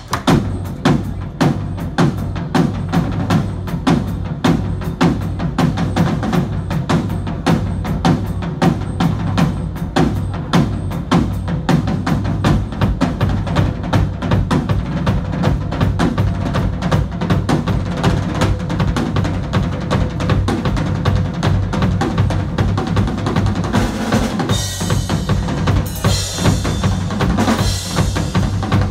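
Live rock band playing loud, with electric guitars and bass over fast, busy drumming on a kit. Cymbals crash harder near the end.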